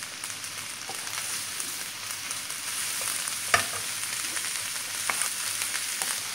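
Chopped onions and green peppers sizzling steadily in oil in a frying pan while being stirred with a wooden spoon, with a few faint scrapes and one sharper click about three and a half seconds in. The vegetables are being lightly sautéed, just until soft.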